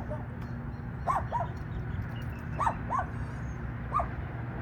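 Small dog whining in short, high yips, five of them, mostly in pairs, over a steady low rumble.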